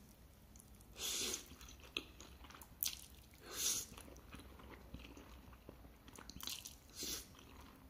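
Person eating tomato-sauce instant noodles: several short slurps of the noodles, with chewing in between.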